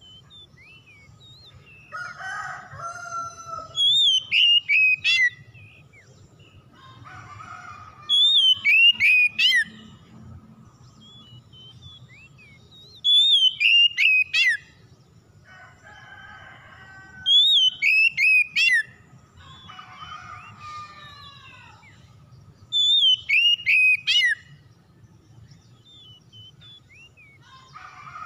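Oriental magpie-robin singing: a loud whistled phrase that starts high and falls in quick strokes, repeated five times about every four and a half seconds, with softer, lower warbling phrases in between.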